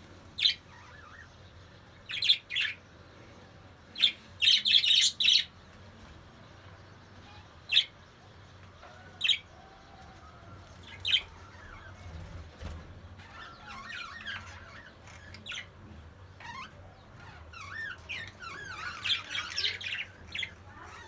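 Budgerigars calling: sharp, scattered short squawks and chirps, then from about halfway through a denser run of chattering, warbling song.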